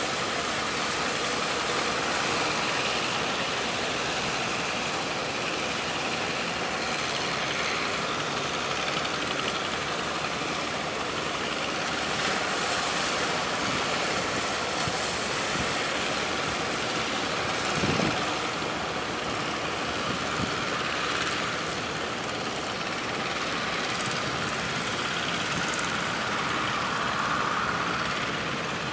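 Steady rush of strong wind and waves with a fishing boat's engine running underneath, and a single knock about 18 seconds in.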